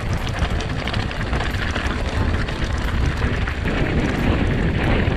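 Mountain bike rolling fast down a loose gravel track: the tyres crunch over the stones and the bike rattles with many quick clicks, under heavy wind buffeting on the microphone.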